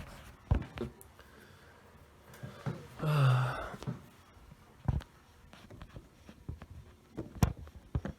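Lock picks and tension tool working in a SEGAL 5-pin pin-tumbler cylinder: scattered sharp metal clicks and taps as pins are set. A short low vocal sound, like a sigh or hum, about three seconds in.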